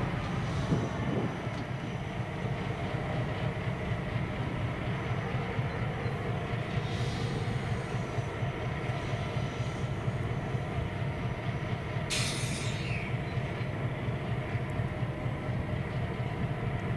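Two coupled diesel locomotives with no train behind them, their engines running with a steady low rumble. A brief high hiss comes about twelve seconds in.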